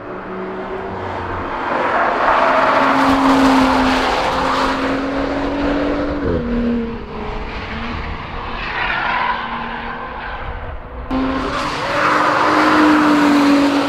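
Audi S5 Cabriolet prototype's engine running hard at high revs as the car drives past. The pitch holds steady, dips about six seconds in as the revs fall, and the note breaks off abruptly and picks up again about eleven seconds in.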